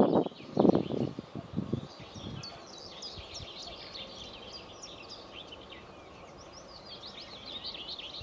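Small songbirds chirping and singing steadily in the background. In the first two seconds, several short, low rumbling thumps stand out louder than the birdsong.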